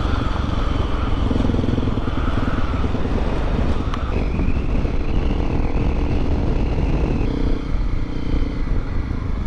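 Honda CRF250L Rally's single-cylinder engine running steadily as the motorcycle is ridden along a dirt trail.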